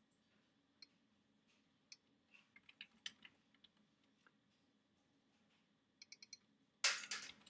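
Computer keyboard keys clicking softly and sparsely as code is typed and edited, with a quick run of keystrokes about six seconds in. A brief, louder burst of noise follows just before the end.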